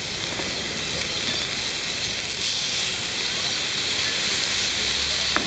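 Beef sizzling steadily on a grill, with one sharp click near the end.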